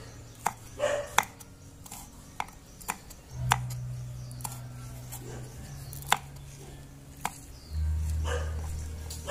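Kitchen knife chopping small red chillies on a wooden chopping board: single sharp knocks of the blade on the wood, spaced irregularly about half a second to a second apart. A low steady hum comes in louder near the end.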